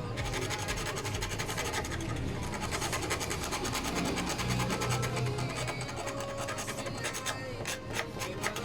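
Rapid scratching and scraping, a dense run of small clicks over quiet background music.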